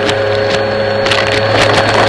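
Vacuum cleaner running steadily with a motor whine, with scattered crackling clicks from debris being sucked up.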